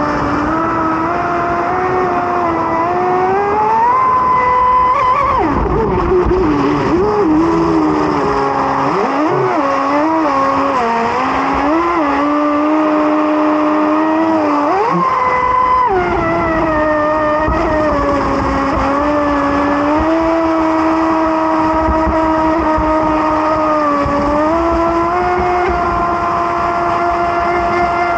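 Radio-controlled boat's motor running, a loud continuous whine whose pitch shifts with the throttle: steady at first, dropping and wavering up and down several times in the middle, then climbing back and holding steady again.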